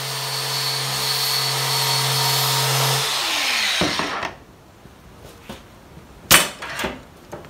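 Angle grinder with a flap wheel grinding back an aluminium TIG weld: a steady motor whine over a hiss of abrasion. About three seconds in the trigger is released and the whine falls away as the disc spins down, followed by a few knocks.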